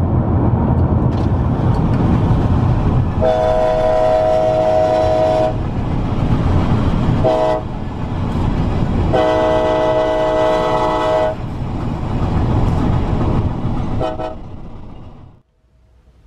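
CSX ST70AH locomotive's air horn sounding a chord in four blasts, long, short, long, short, over the steady rumble of a car pacing the train. The sound cuts off abruptly near the end.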